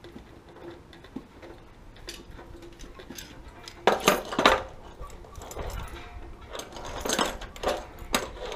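Metal clinking and clanking as hands work at the water heater's pipe fittings, with a cluster of sharp clanks about four seconds in and two more near the end.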